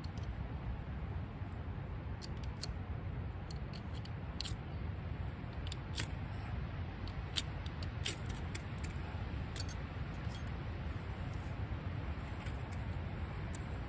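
A series of sharp clicks and scrapes as a fire is lit on a waxed cotton-wool fire lighter in a tray of dry pine needles. They come over a steady low rumble of storm wind.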